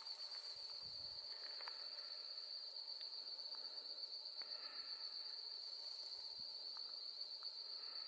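Insects trilling in one steady, high-pitched chorus, with a few faint short chirps underneath.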